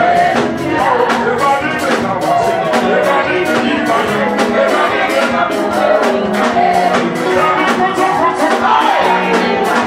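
Loud live Pentecostal praise music: a band with a steady drumbeat and a singer leading over the hall's loudspeakers.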